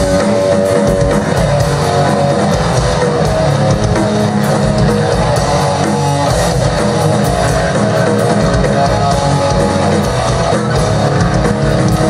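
Live heavy metal band playing an instrumental passage without vocals: distorted electric guitar and bass guitar over a Pearl drum kit with a steady driving kick drum, loud and continuous.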